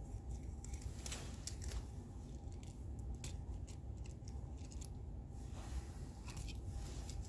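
Scattered faint clicks and light rustling of small plastic fingerboards being handled.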